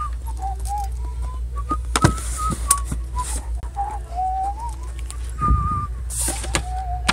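A person whistling a slow, wandering tune in held notes, with a few knocks and rustles of books being handled over a steady low hum.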